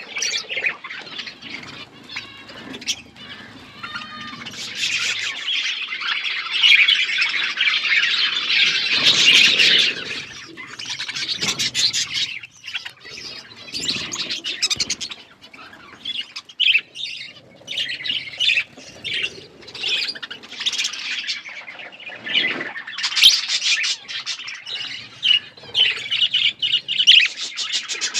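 Several budgerigars chirping and chattering, with short squawks mixed in. A thick stretch of overlapping chatter comes from about five to ten seconds in.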